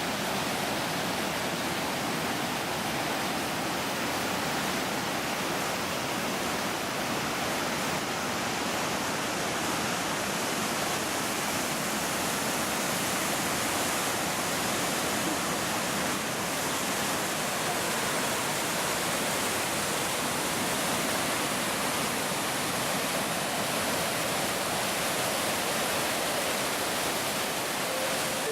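Fukiware Falls: the steady, even rush of a large waterfall, with no breaks or changes.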